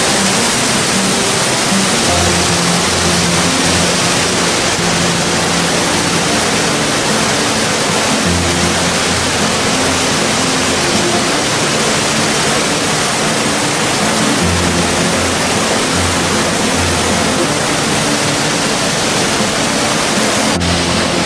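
Waterfall and mountain creek rushing over boulders: a loud, steady rush of falling water. Background music with low held notes that change every second or so plays over it.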